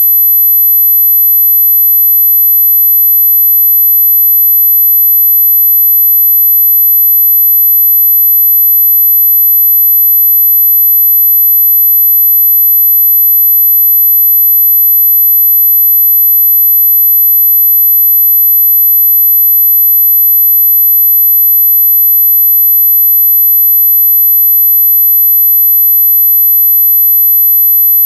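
A steady, high-pitched 12 kHz pure sine tone at constant loudness, a tinnitus-masking tone.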